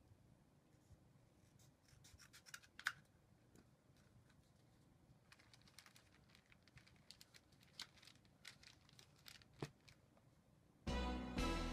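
Faint rustling and scratching with scattered sharp clicks as a cardboard tube is handled and fitted over a roll of wrapping paper. Music comes in loudly near the end.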